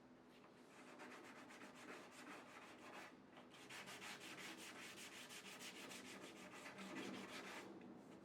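Quick back-and-forth rubbing strokes on a hard surface, about seven a second, with a short break about three seconds in.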